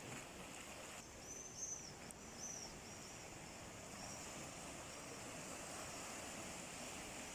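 Sea waves washing with a steady, faint rush, with a small bird giving a quick series of high chirps about a second in.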